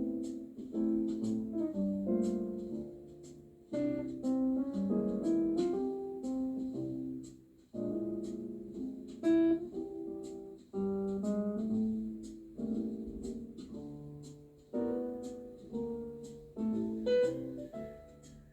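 Background music led by piano, in slow phrases of struck notes that ring and fade, over a light ticking beat.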